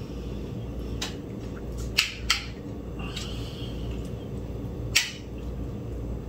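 Metal spoon and fork clinking against a ceramic plate and bowl while eating: a few sharp clinks, two close together about two seconds in and another about five seconds in, over a steady low hum.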